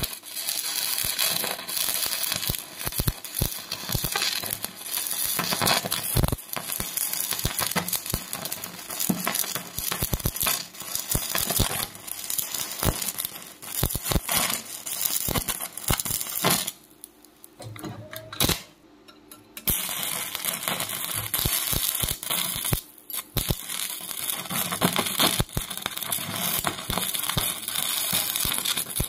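Electric arc welding: the arc crackling and spitting densely, breaking off for about three seconds past the middle before striking up again.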